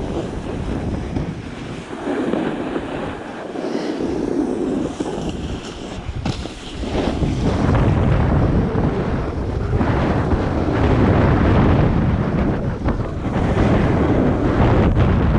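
Wind rushing over the microphone and snow hissing and scraping under a rider sliding down a groomed ski slope, growing louder from about six or seven seconds in as speed builds.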